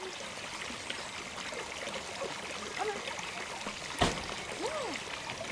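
Steady rushing background noise, like running water, with a single sharp knock about four seconds in and a few faint short rising-and-falling tones.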